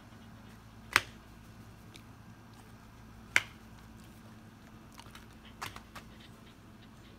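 Two sharp clicks about two and a half seconds apart, then a few fainter clicks later on, over a steady low hum.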